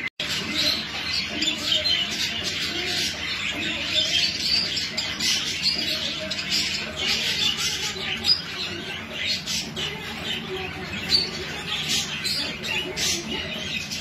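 English budgerigars chattering and warbling, a continuous mix of quick chirps and squawks from several birds, with a brief break just after the start.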